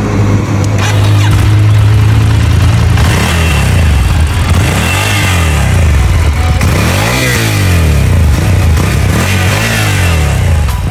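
Ducati Scrambler Nightshift's air-cooled two-cylinder (L-twin) engine running through its stock exhaust. It idles steadily, then from about three seconds in it is revved again and again, the pitch rising and falling with each blip of the throttle.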